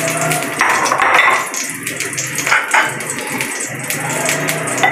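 Background music with steady sustained notes and some percussive hits.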